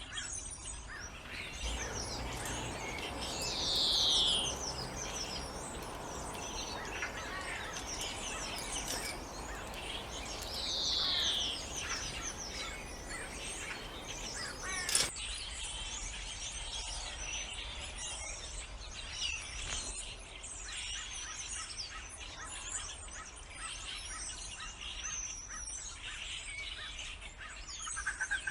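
Many birds chirping and calling together outdoors. Two loud calls slide downward in pitch, one about 4 seconds in and another about 11 seconds in. About halfway through, the background changes abruptly with a sharp click.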